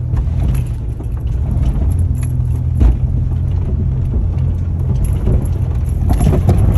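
2001 Jeep Cherokee's 4.0-litre straight-six pulling steadily in four-wheel-drive low range up a loose gravel hill. The tyres crunch over the gravel with scattered clicks and a sharper knock about three seconds in.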